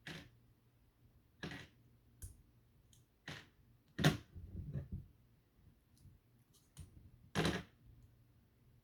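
Plastic LEGO Bionicle pieces being pulled apart and handled: about six sharp, irregular clicks and clacks, the loudest about four seconds in.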